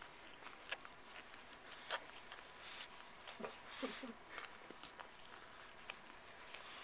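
Newborn French bulldog puppy suckling at its mother's teat: faint, irregular sucking clicks, with a couple of short little grunts or squeaks about halfway through.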